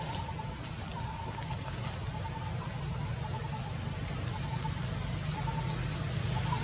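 Outdoor ambience: small birds chirping in short, repeated falling notes over a steady low rumble that grows louder near the end.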